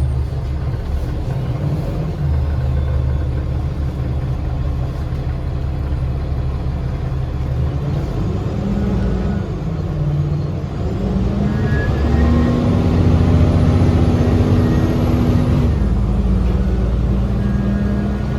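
A 2010 Gillig BRT transit bus's Cummins ISL diesel engine running as the bus drives, with a steady low drone. In the second half, higher whining tones come and go and the engine note shifts.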